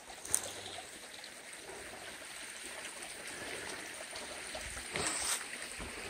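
A small mountain stream trickling steadily over rocks, with a brief louder scuff about five seconds in.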